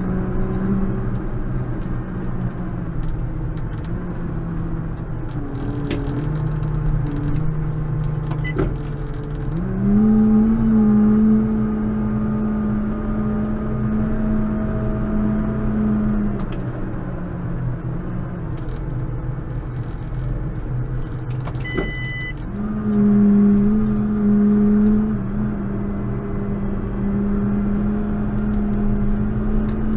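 JCB Fastrac 4220 tractor's six-cylinder diesel engine working steadily, revving up twice, about a third of the way in and again about three quarters through, each time holding the higher pitch for a few seconds before dropping back. A short two-tone electronic beep sounds just before the second rise.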